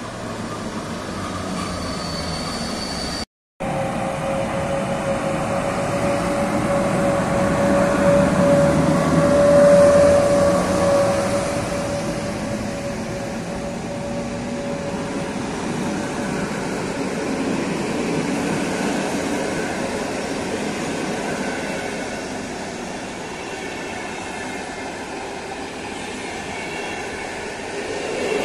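An EP09 electric locomotive and its passenger coaches run past on the rails with a steady rumble of wheels on track. A steady squeal sounds from about four seconds in and fades out around seventeen seconds. The sound cuts out completely for a split second just after three seconds in.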